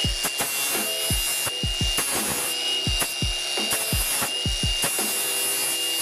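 Angle grinder with an abrasive disc grinding the metal jaw of a vise, a steady high whine. Background music with a thumping electronic beat plays underneath.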